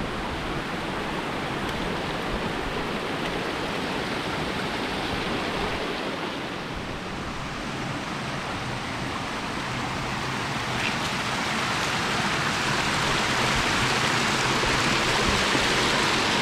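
Small stream of water running and splashing down over rock ledges, a steady rushing that grows louder over the last few seconds.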